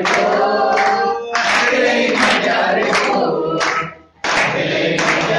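A group of adults singing an Ahirani action song together, clapping their hands along. About four seconds in, the singing stops for a moment and then starts again.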